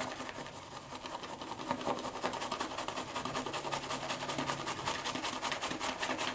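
Shaving brush whipping soap into lather in a 3D-printed PLA plastic bowl: a fast, even run of wet, scratchy swishing strokes, several a second.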